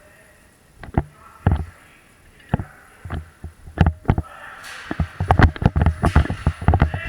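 A series of sharp knocks with a low thud in each, a few at first and then rapid and irregular from about five seconds in, with a rustling hiss underneath.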